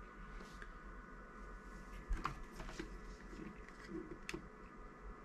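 Faint clicks and light knocks of a small digital bench power supply being handled and its buttons pressed, with the sharpest click about four seconds in. A faint steady hum lies underneath.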